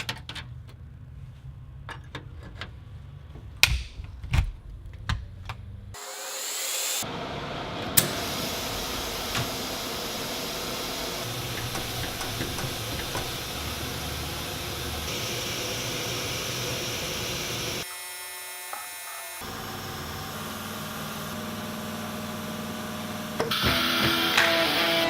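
ShopSabre Pro408 CNC router running with a steady mechanical whir, its spindle whine rising as it spins up about six seconds in. Before that come a few scattered clicks and knocks, and the whir gets louder near the end.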